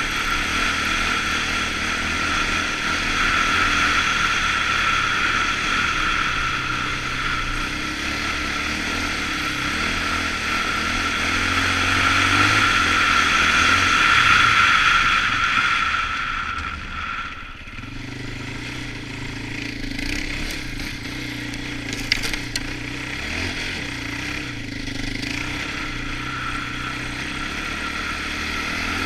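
Polaris Outlaw 525 ATV's KTM-built four-stroke single-cylinder engine running hard under throttle while riding on a snowy trail. It drops off sharply about seventeen seconds in as the throttle is let off, then runs on at lower revs, with a sharp click or two shortly after.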